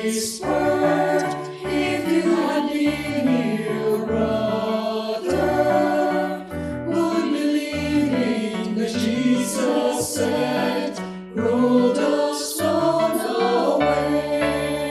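Choir singing a Christian worship song over an instrumental accompaniment with a stepping bass line.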